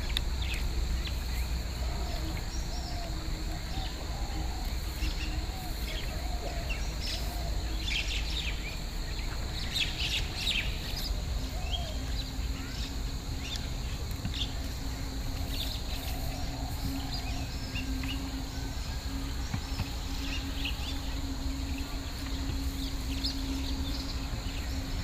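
Scattered small birds chirping, with a cluster of calls about a third of the way in, over a steady low background rumble and a faint steady high hiss. A low steady hum joins about halfway through.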